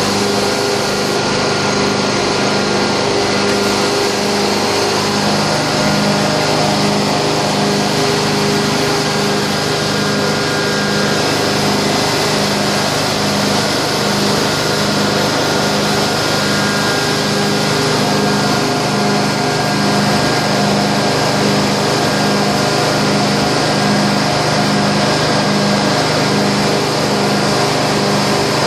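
Electric rotary carpet-extraction tool running on carpet, hooked to a truckmount's vacuum hose: a steady motor hum over the hiss of suction, with a pulsing beat about once a second from the spinning head.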